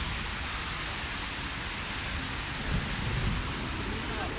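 Heavy rain pouring down: a steady, dense hiss with a low rumble underneath.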